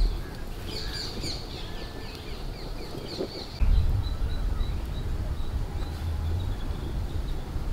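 Small birds chirping in short, quick calls, with a low rumble coming in about halfway through.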